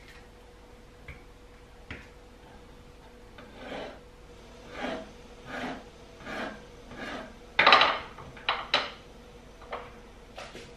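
Small kitchen knife slicing through avocado onto a wooden cutting board: a row of about five soft cuts, each ending on the board. A louder cut-and-knock follows, then a few sharp taps of the knife on the wood near the end.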